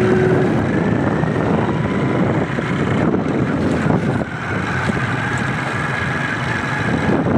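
Motorcycle engine running steadily at road speed, with wind noise on the microphone.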